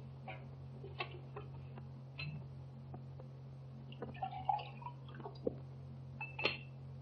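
Glass decanter clinking as it is handled, then a drink poured into a glass about four seconds in, with a ringing glass clink near the end. A steady low soundtrack hum runs underneath.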